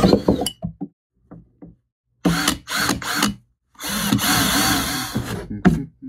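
Cordless drill running a 1.5-inch hole saw through the plastic wall of a sump pump basin, in several bursts with short pauses. The longest burst comes about four seconds in, and there are a few light knocks between the bursts.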